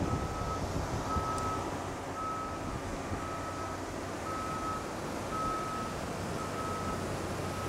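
Reversing alarm of a ground vehicle beeping steadily, about one half-second beep a second, over a steady low mechanical hum.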